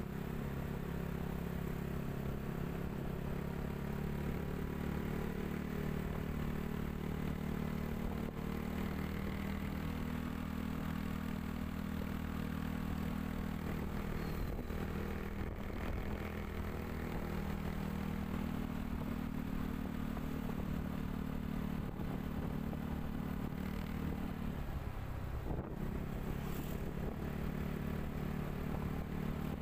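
Motorbike engine running steadily while riding, its pitch drifting up and down with speed. Near the end it drops briefly, as if easing off, then picks up again.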